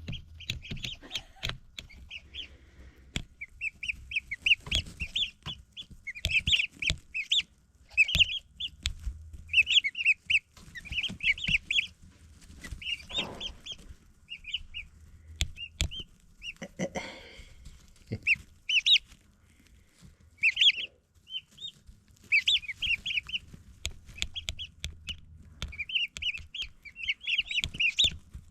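Baby chicks and turkey poults peeping in rapid, high-pitched runs, with scattered knocks and rustling.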